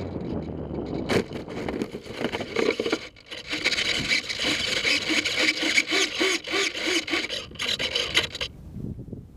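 Harsh, irregular scraping and rubbing right against the plane-mounted action camera: contact noise from the camera or airframe being rubbed or handled. It starts abruptly about a second in and cuts off abruptly near the end.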